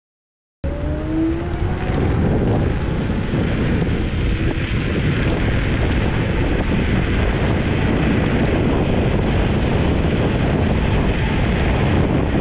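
Wind rushing over the microphone and road noise from a Kaabo Mantis Pro SE electric scooter riding along a street. It starts abruptly under a second in, with a brief rising whine near the start.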